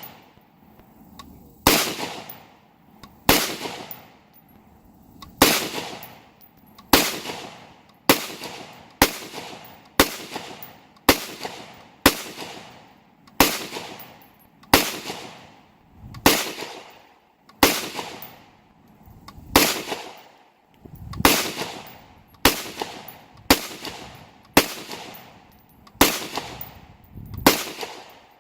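Smith & Wesson M&P15 Sport II semi-automatic rifle fired at a slow, steady pace, about twenty shots roughly one to one and a half seconds apart, each crack followed by a short ringing decay.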